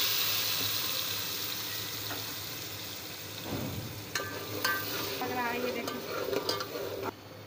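Wet ground onion-tomato masala paste sizzling in hot oil in a steel pot, the sizzle fading over the first few seconds. From about halfway, a spoon stirs and scrapes against the pot with clinks and short squeaks, then the sound cuts off suddenly near the end.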